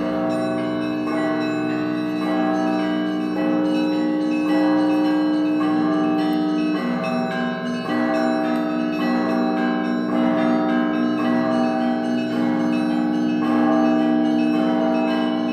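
Orthodox monastery bell ringing: several church bells struck together in a continuous pattern, with a small bell repeating quickly, about three strikes a second, over the sustained ring of larger bells that are struck about once a second.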